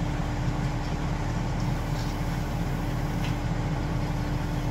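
Ready-mix concrete truck's diesel engine running at a steady speed: a constant low drone with a thin steady hum.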